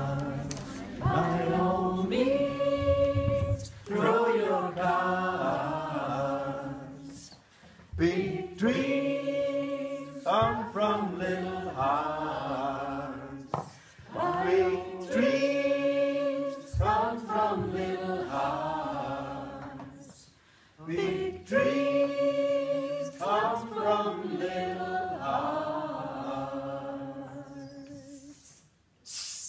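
A group of adults singing together a cappella, in phrases a few seconds long with short breaths between them, fading out near the end.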